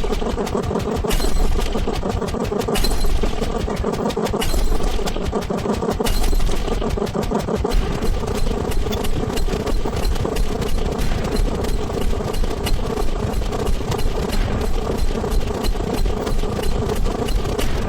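A rapid string of sped-up sound effects merging into a steady engine-like drone, packed with quick clicks. It swells about every second and a half at first, then, from about eight seconds in, pulses several times a second.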